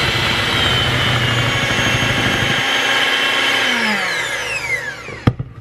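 Electric hand mixer running at speed, its beaters whipping eggs and erythritol to a foam in a glass bowl. About four seconds in it is switched off and its whine falls away as the motor spins down, followed by a sharp knock near the end.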